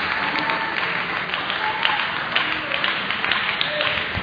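Table tennis balls clicking off bats and tables at irregular intervals, over a steady murmur of voices and hall noise in a large sports hall.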